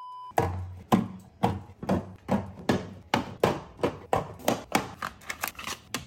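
A short steady test-tone beep with the colour bars, then a quick run of sharp knocks and taps, about two to four a second, speeding up after the first few seconds.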